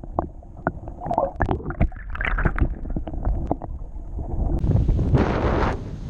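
Underwater sound through a submerged action camera: a muffled low rumble with scattered sharp clicks, pops and gurgles. About four and a half seconds in, the camera comes up out of the water and a louder rushing hiss of wind and lapping water takes over.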